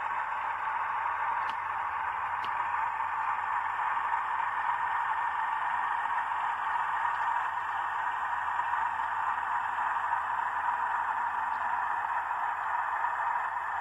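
OO gauge model freight train rolling past, its wagon wheels giving a steady hiss on the track. The model Class 37 diesel's motor adds a faint low hum about six seconds in.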